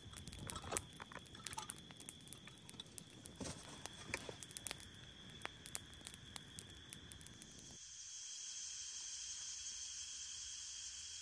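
Close rustling with many small sharp clicks and crackles, as of things being handled or stepped on. About eight seconds in it cuts abruptly to a steady high hiss, with a faint steady high tone underneath throughout.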